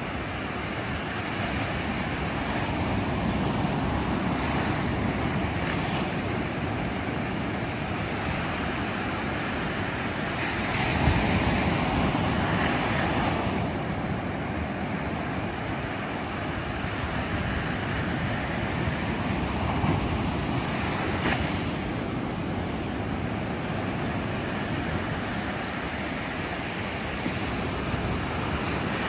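Ocean surf breaking on a sandy beach and washing up the shore in a steady hiss, swelling as larger waves break about a third of the way in and again about two-thirds through.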